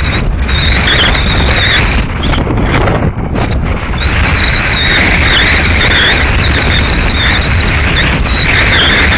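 Wind buffeting a head-mounted 360 camera's microphone, a steady loud rumble, with a thin high whine over it that wavers and dips in pitch.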